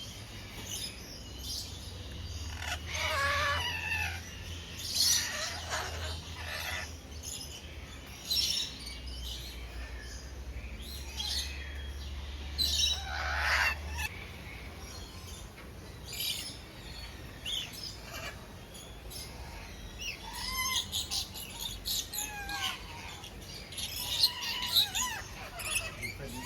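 Parrots calling: a string of separate squawks, chirps and whistled notes, some sliding up or down in pitch, over a low steady hum that stops about halfway through.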